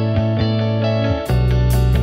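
Background music led by guitar. About a second in, a louder, fuller section with heavier bass comes in.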